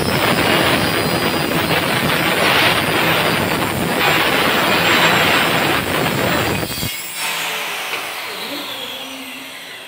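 Kutchina Trendy kitchen chimney's suction blower running at high speed with a loud rushing whoosh; about seven seconds in it is switched off and the airflow dies away gradually as the fan winds down.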